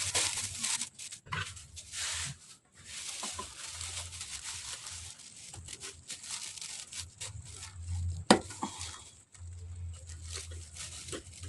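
Rustling and scraping handling noise with scattered small clicks, and one sharp click about eight seconds in, as hands work at the hydraulic line fitting under a clutch master cylinder.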